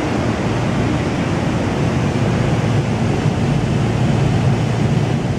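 Steady, loud rush of heavy rain heard from inside a tram car, over a low rumble from the tram.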